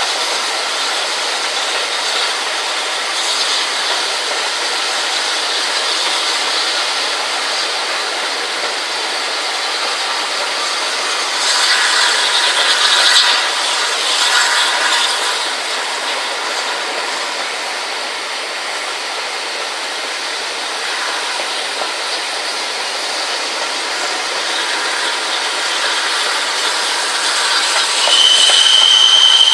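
Running noise of a steam-hauled train, the Flying Scotsman's, with wind rushing past the microphone at an open carriage window. The noise swells for a few seconds about halfway through, and a brief high, steady tone sounds near the end.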